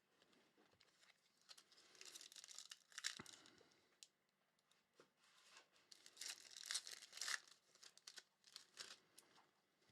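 Trading card pack wrapper being torn open and crinkled, in two bursts of crackling about two and six seconds in.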